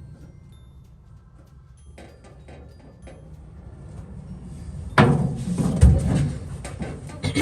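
Tool work on a truck cab's fuse box and wiring harness: a few light metal clicks about two seconds in, then sharp knocks about five and six seconds in, with clatter between them.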